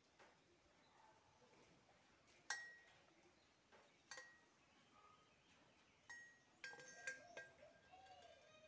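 Stainless steel bottle and its steel cap clinking together as they are handled: a few sharp metallic clinks, then a quicker run of them near the end, each ringing briefly.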